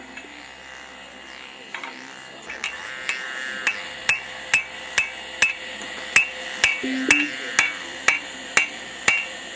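Hammers striking hot steel on an anvil while forging a hardy (cut-off chisel). From about two and a half seconds in, the blows fall in a steady rhythm of a little over two a second, each followed by a short metallic ring.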